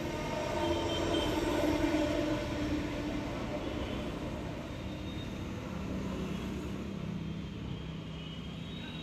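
Steady road traffic noise, with engine hum from passing vehicles.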